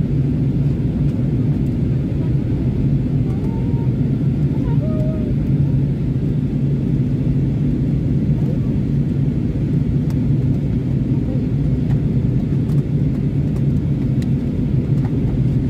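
Steady cabin noise of an Airbus A320neo in flight on approach, heard from inside the cabin: an even low rumble of engines and rushing air with a steady low hum running through it.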